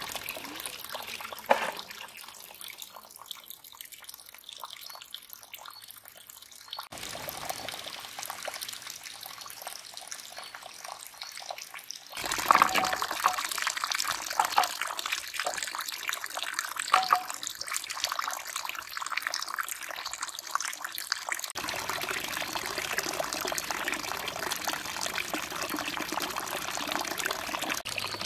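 Spring water pouring from a pipe spout into a stone trough, splashing steadily. Through the middle stretch, hands washing greens in a clay bowl beside the stream add splashing and sharp handling ticks.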